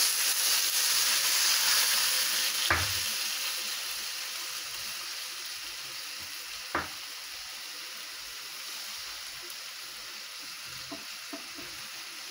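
Lechon sauce sizzling in a hot wok just after it is poured over sautéed lechon pieces, the sizzle dying down over the first several seconds as the liquid cools the pan. Two short sharp knocks, about three and seven seconds in.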